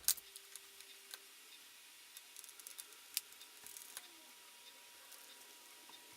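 Faint scattered clicks and light taps of small laptop parts being handled during disassembly. The sharpest click comes right at the start and another about three seconds in.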